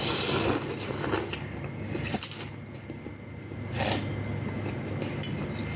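Close-miked eating of noodles: a few short, wet bursts of slurping and chewing.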